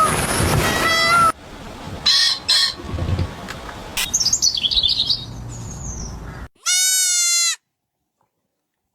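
A run of different animal calls: meow-like cries at the start, then quieter short high calls and a twittering of bird chirps, then one drawn-out bleat-like call, after which the sound drops out.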